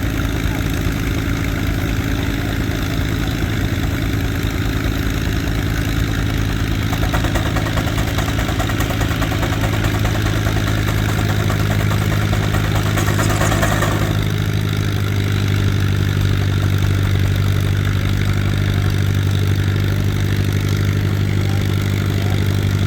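Frick steam traction engine driving a sawmill by belt, running steadily with a constant low hum from the engine and mill. A harsher, noisier sound joins for about seven seconds in the middle, then drops away as the low hum grows stronger.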